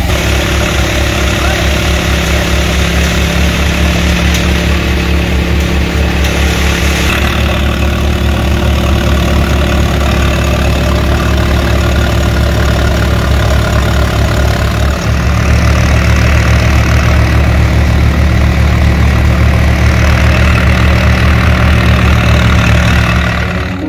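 Farmtrac 6055 tractor's diesel engine running steadily under load, driving a multicrop thresher whose drum churns noisily as bundles of soybean plants are fed in. It grows a little louder past the middle.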